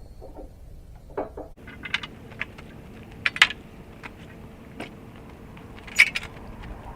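Firewood being unloaded by hand: scattered knocks and clatters of logs dropped and tossed onto a pile, the loudest about three and a half seconds in and again about six seconds in.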